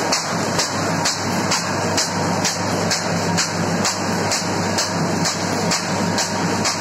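Fully automatic high-speed paper bag making machine running, its mechanism clattering in a steady rhythm of about two strokes a second over a steady low hum.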